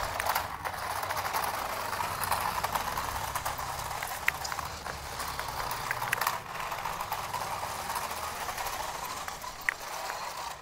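Remote-control toy cars running: a steady whirring rattle from their small electric motors, gears and plastic wheels, with a few sharp clicks.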